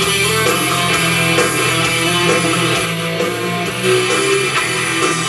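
Guitar music playing from an FM station through the Fisher SC-300K boombox's radio and speakers, received in stereo.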